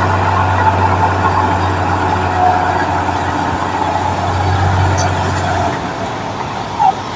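Heavy diesel engine of a construction machine running steadily, a low drone that eases off about six seconds in.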